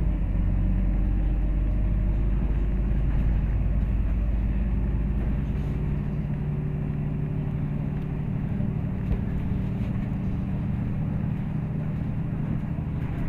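MAZ-203 city bus running under way, heard from inside the passenger cabin: a steady engine drone over tyre and road rumble, with the deep rumble heaviest for the first five seconds or so before it eases.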